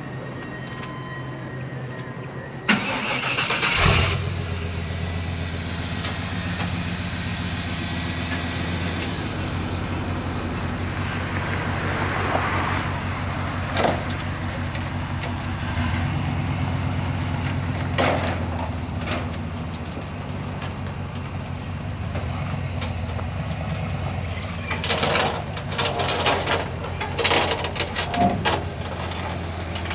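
1990s Chevrolet pickup's engine cranking and catching about three seconds in, then idling steadily. Near the end there is a run of knocks and rattles.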